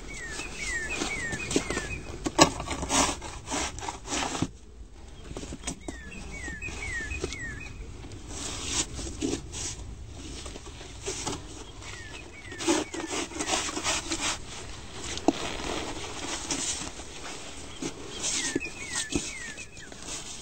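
Snow shovel scraping and chopping at packed snow on the front steps in irregular strokes. A small bird chirps in short runs of three or four falling notes, four times.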